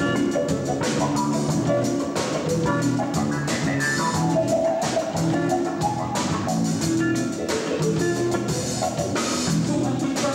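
A band playing live: electric guitar, keyboard and drum kit, with a steady drum beat under held keyboard and guitar notes.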